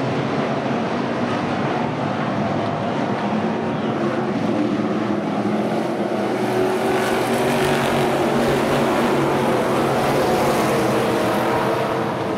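A pack of street stock race cars running on a dirt oval, their V8 engines making a steady mix of engine notes at racing speed, growing louder about halfway through as cars come nearer.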